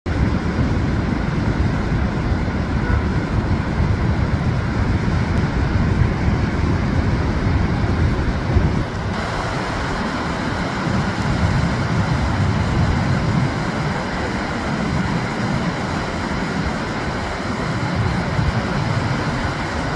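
Surf breaking and washing up a sandy beach in a steady rush, with a gusting low rumble of wind on the microphone. The sound shifts a little about nine seconds in.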